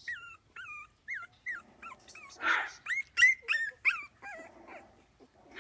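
Three-week-old puppies squeaking and yipping in quick succession while tussling: a string of short, high-pitched cries that bend up and down, with a louder, rougher yelp about two and a half seconds in.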